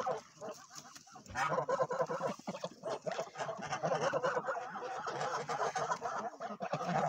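A group of white domestic geese calling together at close range: a few quieter calls at first, then loud, continuous overlapping calling from about a second in.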